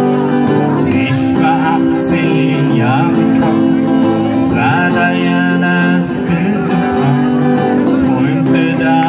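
Live band music through a PA: acoustic guitars strumming a steady accompaniment with a wavering melody line over it.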